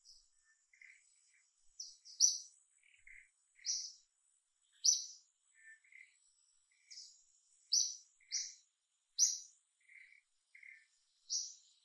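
Wild birds chirping in short, sharp, high calls at irregular intervals, with softer lower notes from another bird in between, over a faint steady high insect whine.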